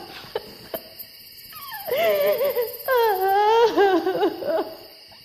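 A young woman wailing and sobbing in long, wavering cries that break and fall in pitch, starting about a second and a half in and dying away near the end.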